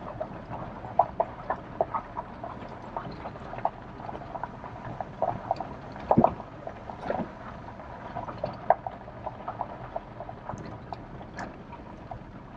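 Irregular clicks, knocks and rattles inside a Nissan Frontier pickup's cab as it creeps over a bumpy dirt trail, over a low steady hum; the loudest knock comes about six seconds in.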